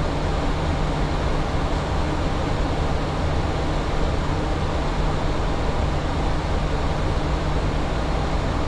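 Steady flight-deck noise of a Boeing 737 in flight: an even rushing noise with a constant low hum underneath.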